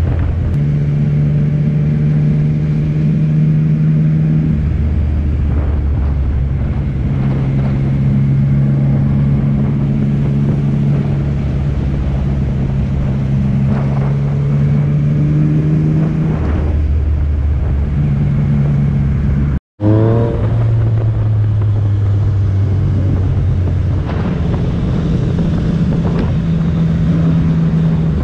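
Yamaha MT-09 three-cylinder motorcycle engine running under way, heard from on the bike. Its note holds steady but steps several times between a lower and a higher pitch as the throttle and gears change. The sound cuts out for an instant about two-thirds of the way through.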